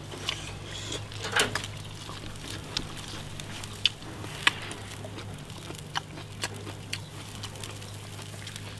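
Freshwater eel grilling over charcoal: scattered sharp crackles and clicks as metal tongs work the pieces on the wire grate, over a low steady hum.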